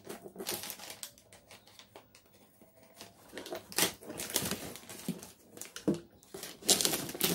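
Blue plastic parcel wrapping being cut and torn open with small thread snips: scattered clicks and crinkles, with louder crinkling bursts near the end.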